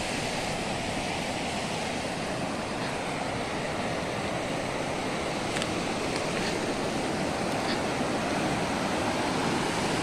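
Water rushing steadily out of a concrete weir's row of culvert outlets and down a rocky channel, loud enough to drown out a voice.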